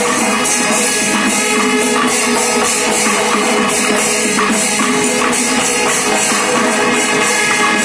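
Panchari melam, the Kerala temple percussion ensemble: chenda drums and ilathalam hand cymbals play a dense, steady rhythm while kombu horns sound long held notes over it.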